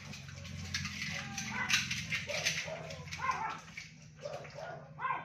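Dog whimpering in a string of short whines that rise and fall, over the clatter of dishes being washed at a running sink, with a steady low hum underneath.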